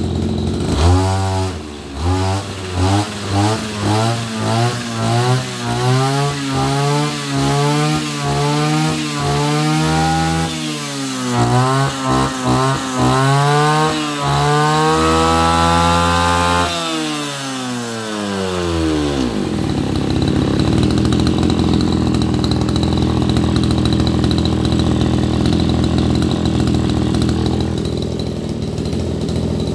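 Zenoah Komatsu G2K brush cutter's 26cc two-stroke engine, blade fitted, revved in quick throttle blips about once a second, showing off its sharp pickup. The revs then come in longer sweeps, are held high for a couple of seconds, and drop back to a steady idle a little past halfway.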